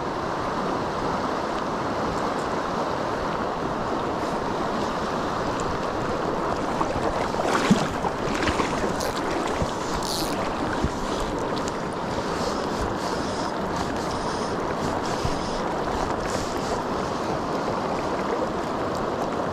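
Steady rush of a river's current flowing over rocks, with a few brief knocks and scratches around the middle.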